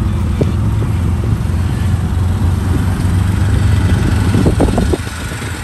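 Three-wheeled auto-rickshaw (tuk-tuk) engine running steadily with road noise, heard from inside the open passenger cabin while riding. The engine hum drops away briefly about five seconds in, then picks up again.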